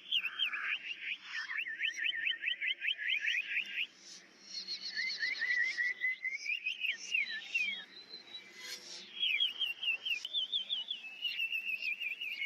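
Sirtu songbird (also called sridung) singing loud, fast runs of short, clear chirping notes, several a second, with a brief pause about four seconds in before it starts again.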